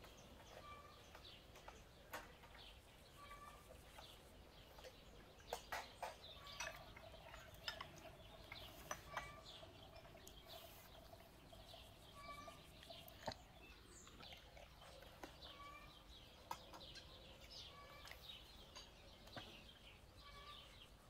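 Faint bird calls: a short chirp repeated every second or two, with scattered light clicks.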